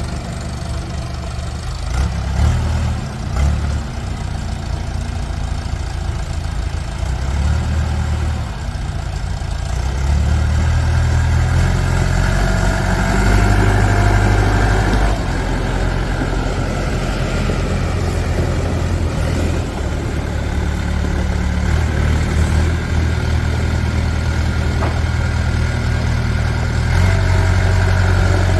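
JCB 2CX backhoe loader's diesel engine running, at idle at first, then louder and busier from about ten seconds in. A thin steady whine rises over it for a few seconds around the middle and again near the end.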